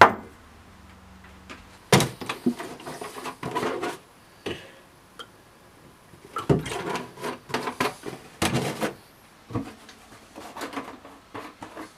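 Kitchen handling sounds: a ceramic mug set down on a counter with a sharp knock, then three spells of clatter and knocks as crockery, a plastic milk bottle and a cupboard are handled.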